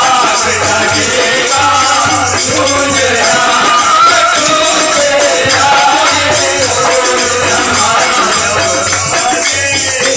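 Loud music with a fast, even shaker-like beat, a low repeating pulse and a wavering melody line.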